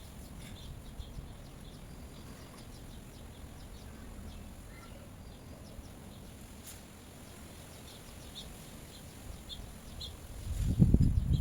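Low rumble of wind buffeting the microphone, with a stronger gust near the end, and small birds chirping in short high notes, more often in the second half.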